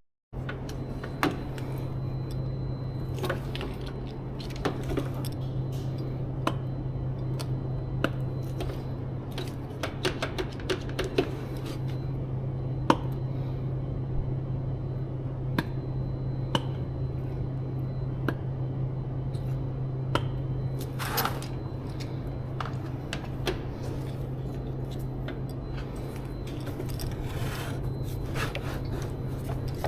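Cleaning and handling sounds: scattered light clicks, taps and knocks of items being moved, with two short spray-bottle hisses, one about two-thirds through and one near the end. A steady low hum underlies it all.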